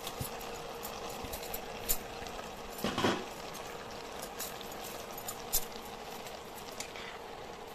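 Tomato-masala gravy simmering in a pan under a heap of chopped greens: a steady bubbling hiss with faint small pops, over a steady low hum. About three seconds in there is a short scrape of a spatula in the pan.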